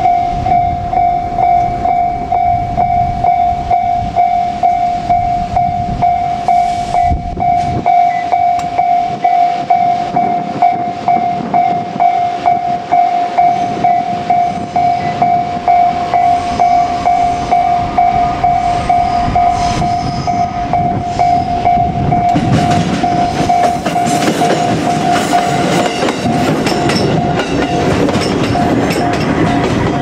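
Japanese level-crossing warning bell ringing in a steady rhythm of about two strikes a second. Around three-quarters of the way in, a JR Kyushu 787 series limited-express electric train passes close by, and its wheel and rail noise joins the bell.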